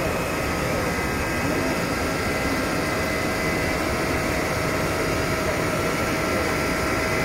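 Focus Alpha-Jet UV flatbed printer running: a steady mechanical hum with several thin, steady whining tones on top.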